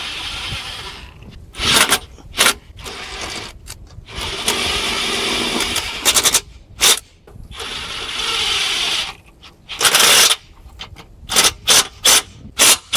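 Ratchet wrench with a 1/2 inch socket tightening the engine's mounting bolts on a lawn mower deck: long stretches of rasping ratchet clicks, then quick back-and-forth ratchet strokes, about two or three a second, near the end.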